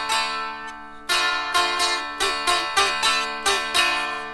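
Dulcimer played solo: a quick run of strummed notes, about three a second, over steadily ringing drone strings, the last note fading away near the end.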